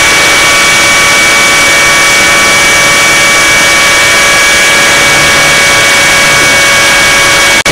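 Align T-REX 600 RC helicopter heard from on board: a loud, steady high whine from its drivetrain over a rush of rotor air, running at a constant speed. The sound drops out for an instant just before the end.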